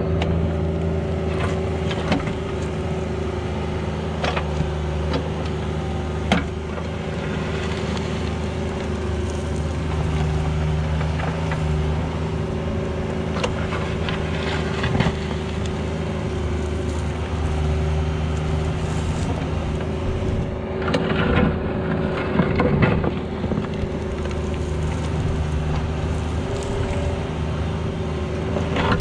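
Mini excavator's diesel engine running steadily while it digs, with occasional sharp clanks and scrapes from the bucket working the ground, most of them in a short cluster about two-thirds of the way through.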